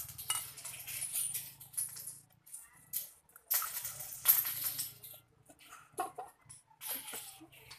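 Eating sounds from a mukbang of spicy instant noodles: noodles slurped, with utensils clicking against the bowl. The loudest slurp comes about halfway through.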